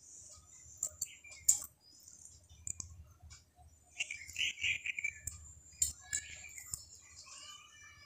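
Faint scattered clicks and crinkles from a plastic spice packet and from fingers rubbing ground turmeric onto eggplant slices in a plate. Birds chirp in the background from about halfway through.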